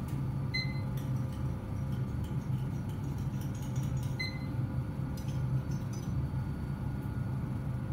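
Steady low hum of lab machinery, with faint clicks and two short glassy clinks, about half a second and about four seconds in, as glass slides and a bottle are handled at the bench.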